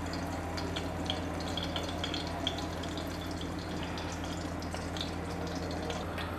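Beaten eggs frying in hot oil in a non-stick wok: a steady sizzle with scattered light crackles as the egg layer sets.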